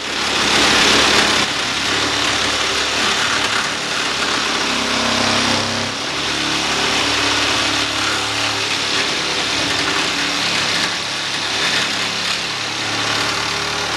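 DeWalt DCS310 12V Max pivot reciprocating saw running steadily, its blade cutting into wood with a continuous buzzing rasp.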